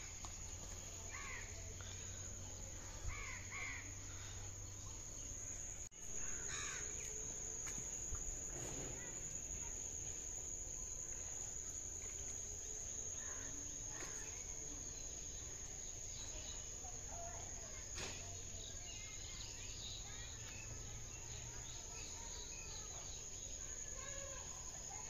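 Rural outdoor ambience: a steady high-pitched insect drone with scattered short bird calls, a few close together in the first seven seconds and fainter ones later, over a low rumble.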